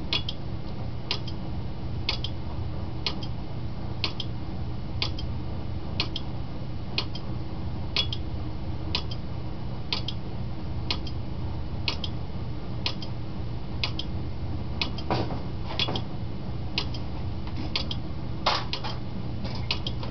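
Relays of a homemade 4-bit relay binary counter clicking as it counts, about one click a second, with now and then a heavier clatter where several flip-flop stages switch at once. A steady low hum runs underneath.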